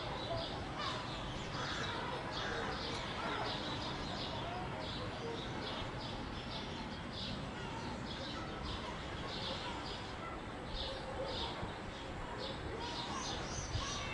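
Small birds chirping over and over, a few short chirps a second, over a steady low background rush.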